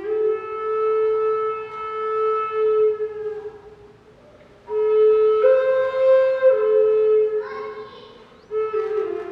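A traditional Andean wind instrument blown in long held notes with a rich, horn-like tone, in separate phrases with short pauses between them and a brief step up in pitch in the middle phrase.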